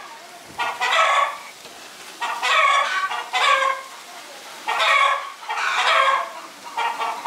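Chickens clucking and cackling in a string of short, squawky calls, roughly one a second, sounding thin with the low end cut away.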